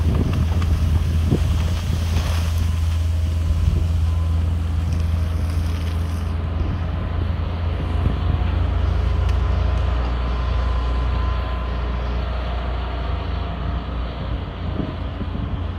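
Hitachi ZX210LC crawler excavator's diesel engine running steadily under working load, a deep drone with a faint whine above it as the boom swings and the bucket lowers.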